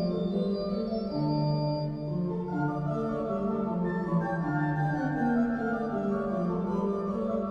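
Slow organ music: held chords with a melody moving from note to note.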